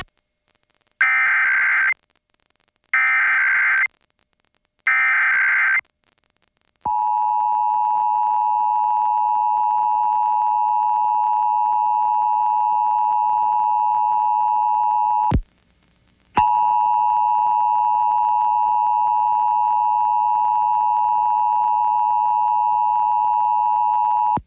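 Emergency Alert System Required Monthly Test signal: three one-second bursts of the digital SAME header data, then the steady two-tone attention signal (853 and 960 Hz sounded together). The attention tone breaks off for about a second and then starts again.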